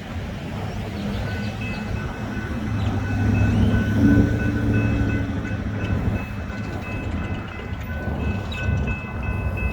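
Train rumbling past, loudest about four seconds in, with a steady, pulsing high ringing over it.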